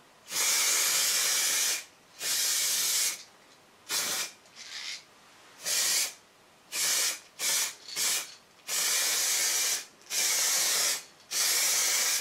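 Aerosol spray-paint can hissing in about ten short passes, some lasting a second or more and others brief dabs, with short pauses between: a colour-coded blue coat going onto body repairs.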